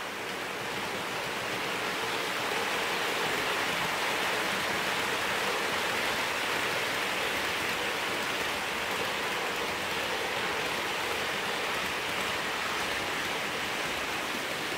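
OO gauge model trains running past on the track, a steady hiss of metal wheels rolling on the rails and motors running. It grows a little louder over the first couple of seconds, then holds even.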